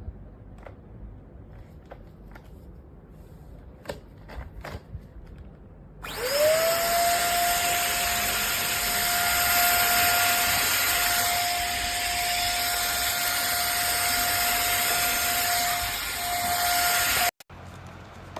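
Simplus 400 W lightweight vacuum cleaner switched on about six seconds in. Its motor spins up quickly to a steady high-pitched whine over the rush of air, then is switched off and cuts out suddenly. A few light clicks of handling come first.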